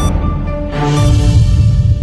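News-intro theme music: sustained synth tones, then a swell and a deep bass hit about a second in that rings out as the logo lands.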